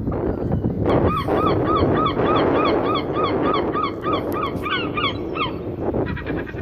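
A gull calling in a rapid series of short, repeated cries, about three a second, that ends a little past halfway, over a steady loud rushing noise.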